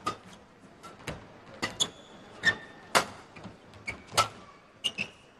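Badminton rackets striking the shuttlecock back and forth in a rally, sharp hits every half second to a second, with a few short squeaks of shoes on the court floor.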